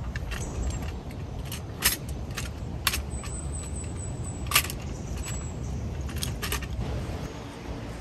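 Metal clicks and clinks from handling a folding camp stove as it is taken from its bag and its legs are unfolded: three sharper clinks about two, three and four and a half seconds in, among lighter taps, over a steady low rumble.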